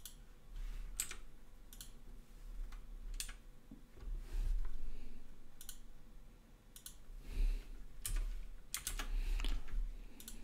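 Computer keyboard keystrokes and clicks, about a dozen sharp taps at an irregular pace over a low hum.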